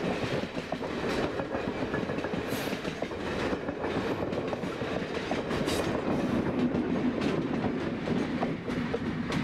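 Passenger coaches of a steam excursion train rolling past at speed, steel wheels clacking over rail joints with a steady rumble and occasional sharper knocks. Near the end the steadier hum of the diesel locomotive trailing at the rear of the train joins in.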